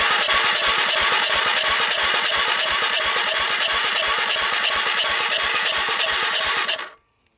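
Starter cranking the 1998 Honda TRX300EX's single-cylinder engine with a compression gauge in the spark plug hole: a steady whir with an even, rapid beat of compression pulses, cutting off suddenly near the end. The gauge reads just over 40 psi, a sign of low compression.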